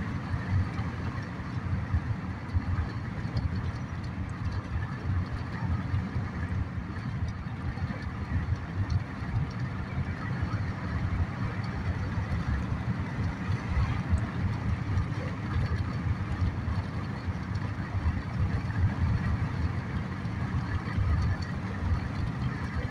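Steady road noise inside a moving car's cabin: a low, even rumble of tyres and engine while driving along a highway.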